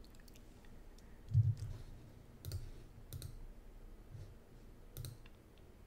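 About five faint, separate clicks of a computer mouse and keyboard, spaced roughly a second apart, some with a soft low thump beneath.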